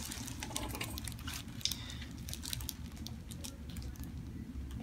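Faint, irregular small ticks and rustling as hands handle a patient's head and neck on a paper-covered treatment table, with a sharper tick right at the start, over a steady low room hum.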